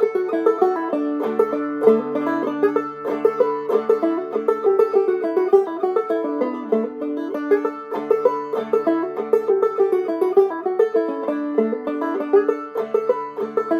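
Five-string banjo played clawhammer style: a fiddle tune picked in quick, even notes, with a low note that drops out and comes back every few seconds.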